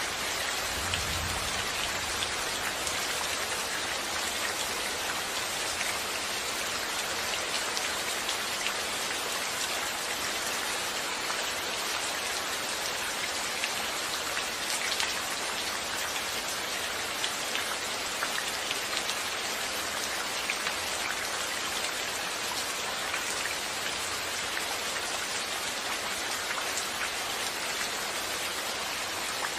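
Steady rain falling, a continuous hiss dotted with the patter of individual drops.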